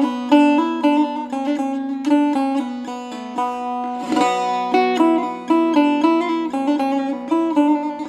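Background music: a plucked string instrument picking a quick melody over a steady low drone, with a brief swish about halfway through.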